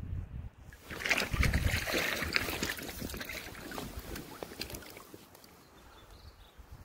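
Water splashing, with quick crackling spatters, starting about a second in and fading away over the following seconds.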